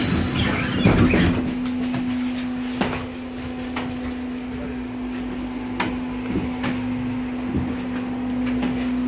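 T8K-503 tram in motion, a steady hum under rattling and sharp knocks from the wheels and body, loudest in a burst of clatter about a second in.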